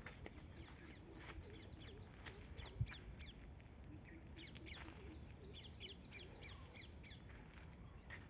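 Faint outdoor bird calls: many short high chirps together with some lower repeated calls. There is one soft thump about three seconds in.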